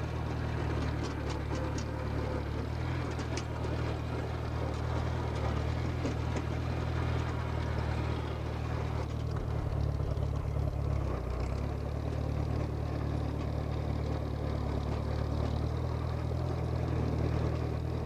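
Case 310 crawler dozer's engine running steadily as the machine moves, its note changing briefly about ten seconds in.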